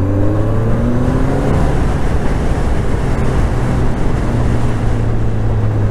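Motorcycle engine accelerating, its pitch rising over the first two seconds, then running steadily under a heavy rush of wind noise on the microphone.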